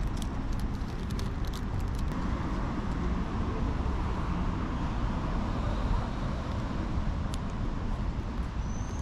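Steady road-traffic rumble of a city street. A few light crinkles of a plastic bag being handled come at the start and once more about seven seconds in.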